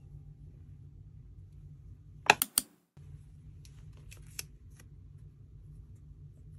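Packaging-handling sounds over a low steady hum: three sharp clicks in quick succession about two seconds in, then after a brief dropout a few faint taps and rustles as hands handle the cardboard Apple Pencil box.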